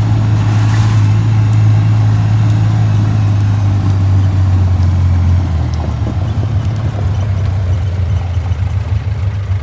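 Vehicle engine running while driving: a steady low drone that drops in pitch about halfway through.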